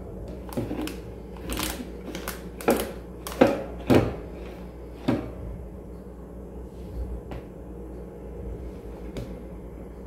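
A yellow plastic scoop knocking against a mixing bowl and a glass dish as a thick cream mixture is scooped out and spread. There is a run of sharp knocks in the first five seconds, the loudest three close together about halfway through, then only a few faint taps.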